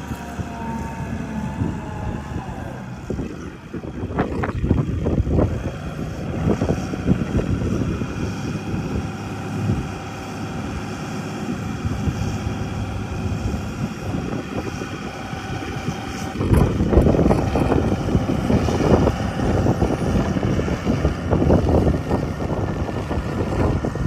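Farm tractor's diesel engine running steadily while its hydraulics raise a tipping trailer to dump a load of manure; the sound gets louder about two-thirds of the way through.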